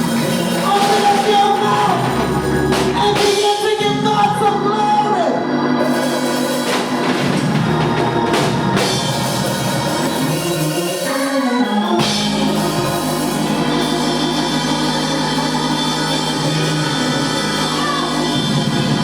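Church music: organ playing sustained chords with singing over it and a light drum kit.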